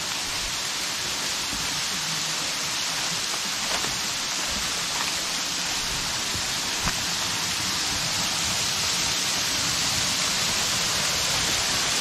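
Waterfall: a steady rush of falling water, growing slightly louder toward the end, with a couple of faint knocks in the middle.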